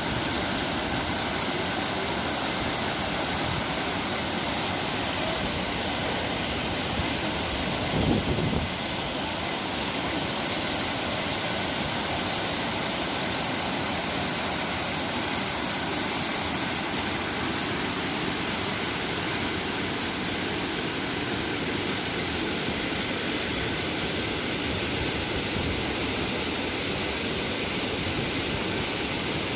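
Waterfall pouring steadily, a constant even rushing of falling water, with one brief louder low thump about eight seconds in.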